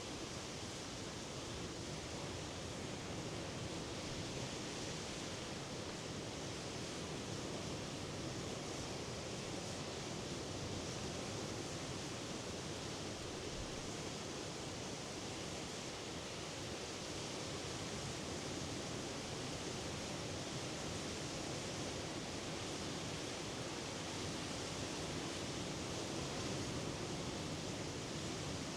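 Sea surf washing as a steady, even noise, with no single wave break standing out.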